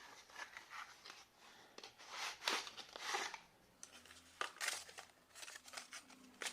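Packaging of a USB data cable being opened by hand: rustling and crinkling in several short scrapes, then a run of light clicks and taps in the second half.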